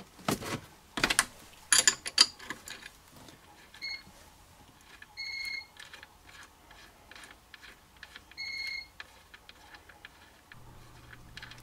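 Spanner clicking and knocking on a leisure battery's negative terminal nut as it is undone, the loudest knocks in the first couple of seconds. Short electronic beeps sound about every three seconds from about four seconds in, and a low steady hum comes in near the end.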